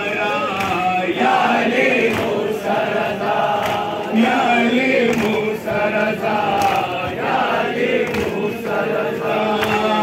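A crowd of men chanting a Shia noha (mourning lament) together, with sharp slaps of chest-beating (matam) keeping time.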